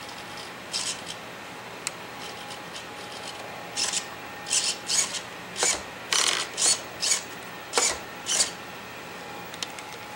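Associated T3 electric RC truck worked from its transmitter in short bursts: about a dozen brief whirs, a few isolated ones first and then a quick run of them from about four seconds in, over a faint steady tone.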